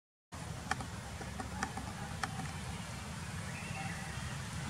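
Steady low outdoor rumble, with three short sharp clicks in the first half.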